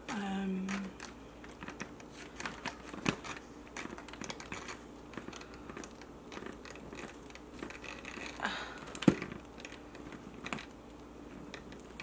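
Bamboo fork scraping, tapping and clicking against a plastic takeout container as it cuts into a soft wet burrito, in an uneven run of small clicks with one sharp click a little past the middle; the fork struggles to cut through. A short hummed voice sound comes at the very start.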